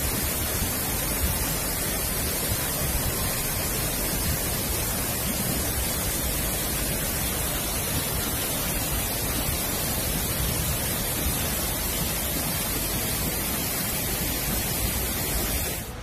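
Chitrakot waterfall in monsoon flood: a steady, unbroken rush of a huge volume of muddy water falling, cutting off suddenly near the end.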